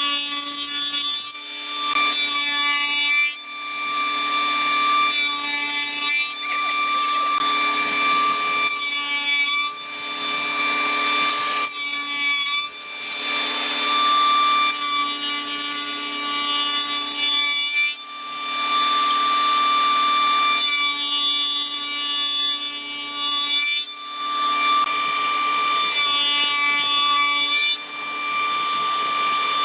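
Electric power tool running with a steady whine and cutting into solid hardwood in repeated passes. Each pass adds a rough shaving noise that lasts from about a second to several seconds, and the motor keeps running between them.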